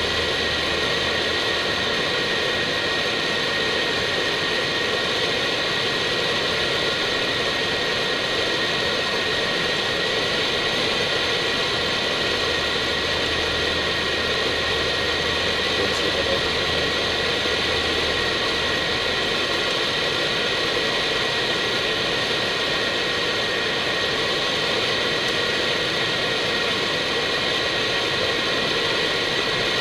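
Steady flight-deck noise of an Airbus A319 in flight: a constant hiss of airflow and ventilation with a steady high whine under it. A low hum comes in briefly at the start and again for a few seconds in the middle.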